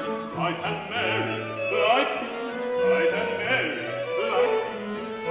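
Baroque vocal music: a male singer with vibrato, accompanied by two violins and harpsichord.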